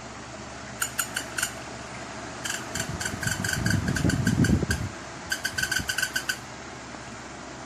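Electric fan running with a steady whoosh, broken by three runs of rapid, ringing clicks, up to about eight a second, and a low rumble swelling in the middle. These are the fan's weird noises, a rattle or knock from inside the fan.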